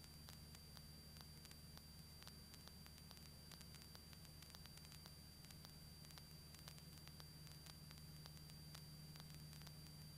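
Near silence: faint intercom hiss with a steady low hum, the Cessna 172's engine at full power for a power-on stall heard faintly through the headset intercom, plus a thin steady high whine and scattered faint clicks.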